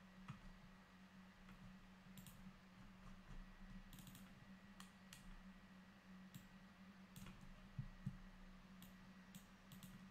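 Faint computer mouse clicks, a dozen or so at uneven intervals, some in quick pairs, over a low steady electrical hum.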